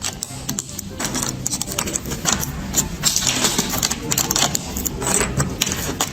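Loud, dense mechanical clattering and rattling, with many rapid clicks and knocks over a noisy rumble, loudest around the middle.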